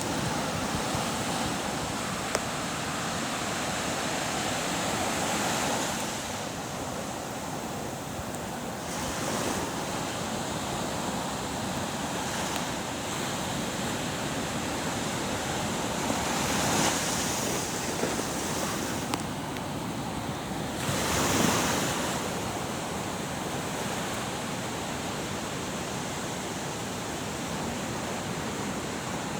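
Surf washing in: a continuous rushing wash of waves that swells louder several times as bigger waves break, most strongly a little past the middle and again about two-thirds of the way through.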